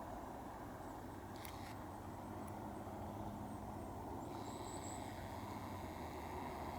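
Steady low outdoor background rumble, like distant traffic, with a single brief click about a second and a half in and faint high chirps a little after the middle.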